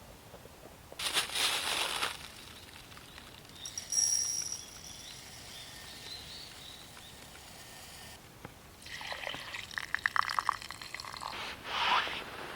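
Liquid being poured, with a run of quick gurgling ticks about nine seconds in and short noisy bursts about a second in and near the end.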